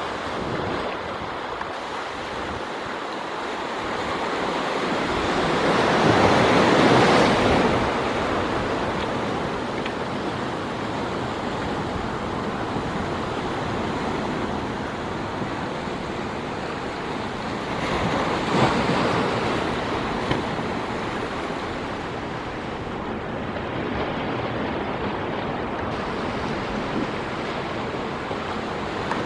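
Sea surf washing over a rocky shore: a continuous wash of waves that swells loudest about seven seconds in and again, more briefly, around eighteen seconds in.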